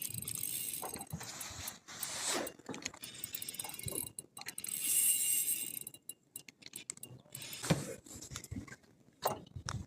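Fishing reel being wound, its gears clicking as a stick minnow lure is retrieved, with short pauses in the winding.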